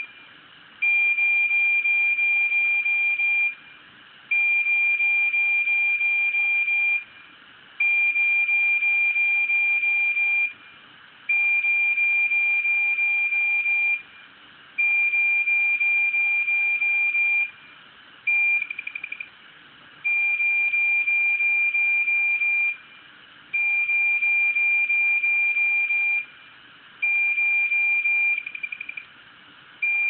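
Failed hard disk drive giving out a loud, steady high-pitched tone like a fire-alarm siren. The tone repeats about every three and a half seconds, each lasting under three seconds with a short gap between. A couple of the tones warble and break up. The sound is a sign that the drive has failed.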